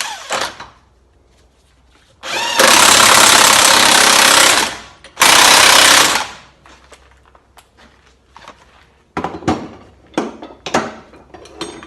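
Impact wrench hammering bolts tight on a car's front hub bearing: a burst of about two seconds, then a second one of about a second, followed by scattered metallic tool clinks.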